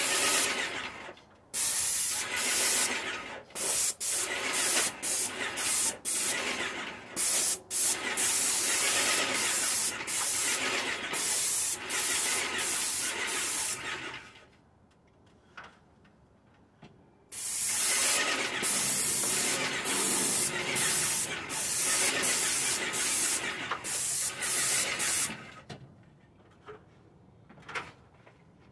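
Avanti airless paint sprayer hissing in repeated bursts as the spray gun's trigger is pulled and released. There is a pause of about three seconds midway, and the spraying stops a few seconds before the end.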